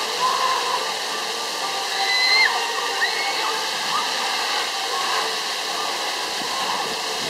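A plaza fountain's many water jets spouting and splashing back down onto the paving: a steady rush of falling water.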